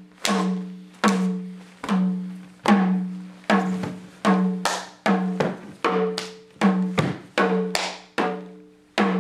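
Percussion accompaniment playing a steady beat: repeated struck hits, roughly two a second, each ringing on the same low note and fading away.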